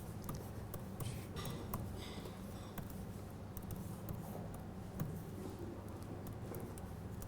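Room tone with a steady low hum, scattered small clicks and brief rustles, the loudest rustles about a second or two in.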